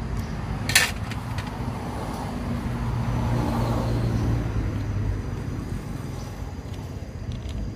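A motor vehicle passing by: engine and road noise with a low hum swell to a peak midway and fade away. A sharp click about a second in.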